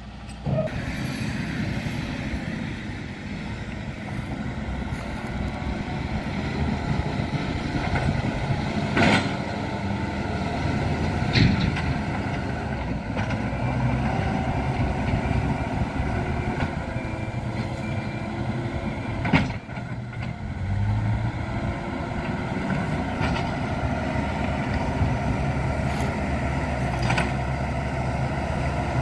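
Diesel engine of heavy earthmoving machinery running steadily under work, with a few sharp metallic knocks.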